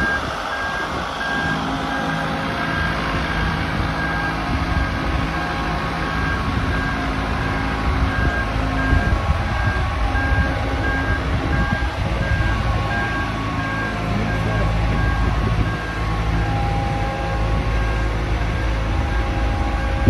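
Marine Travelift boat hoist running its engine as it drives along carrying a sailboat, with its motion warning alarm beeping at a steady pace throughout.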